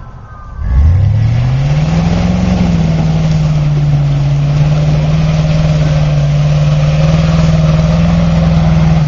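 Chevy Avalanche's V8 engine revved hard about a second in, climbing quickly in pitch and then held at steady high revs for several seconds before dropping off right at the end.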